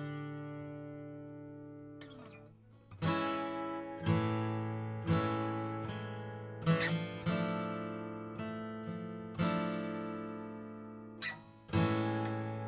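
1965 Epiphone Texan FT79N steel-string acoustic guitar being strummed: a chord rings out and fades for the first two seconds, then chords are struck roughly once a second and left to ring.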